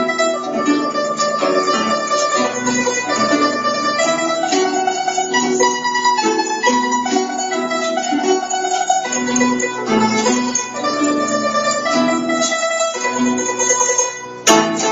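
Guzheng (Chinese zither) played solo: a quick plucked melody with notes ringing over one another. Near the end the sound dips briefly, then a single sharp click.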